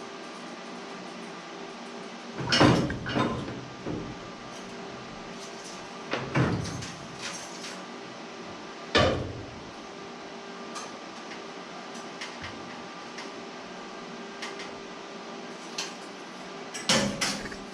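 A handful of loud knocks and clanks, the first a quick cluster of several, then single knocks about a third and half of the way in, and another cluster near the end, over a steady hum.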